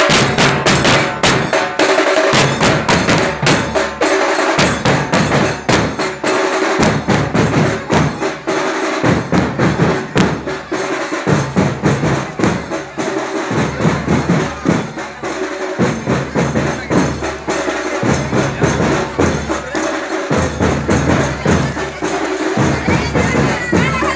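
Loud percussion music with fast, evenly repeating drumbeats.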